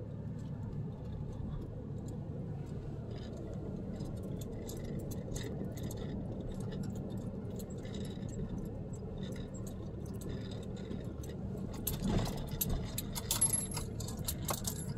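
Inside a moving vehicle's cabin: a steady low hum of the running vehicle, with light metallic jingling and small rattles from loose things in the cabin. The jingling gets busier after a bump about twelve seconds in, as the vehicle goes over rough road.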